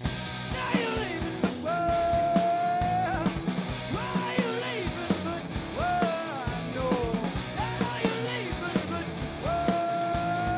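Three-piece rock band playing live: electric guitar, bass guitar and drum kit, with a male singer holding long notes into the microphone.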